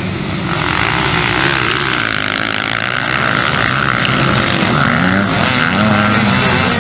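A pack of motocross bikes racing just after the start, many engines revving and shifting at once, their pitches rising and falling over each other.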